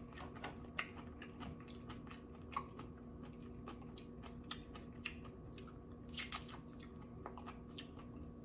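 Close-miked chewing and wet mouth smacks of a person eating seaweed salad, with irregular sharp clicks, the loudest a little after six seconds in. A faint steady hum lies underneath.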